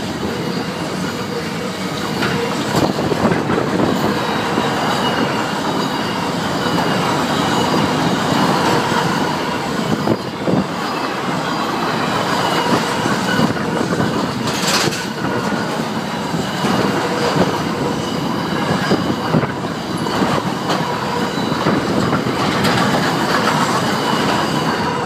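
Container freight wagons rolling past at close range, with wheels clicking and knocking on the rails and a faint steady high wheel squeal over the rumble.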